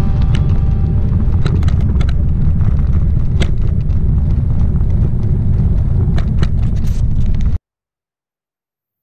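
Wind buffeting the microphone of a bicycle-mounted camera while riding, with tyre noise on rough asphalt and scattered sharp clicks and rattles. The sound cuts off suddenly to silence about seven and a half seconds in.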